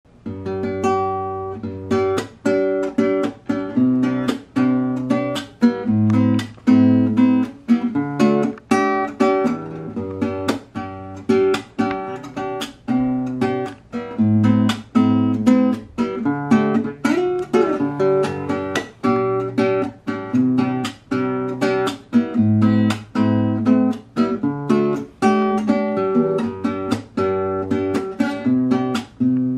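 Nylon-string classical guitar played fingerstyle: a steady run of plucked chords and melody notes, about two a second, over ringing bass notes.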